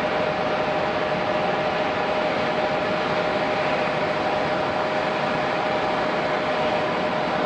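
Jet airliner engines running steadily: a constant rushing noise with a steady whine held at one pitch throughout.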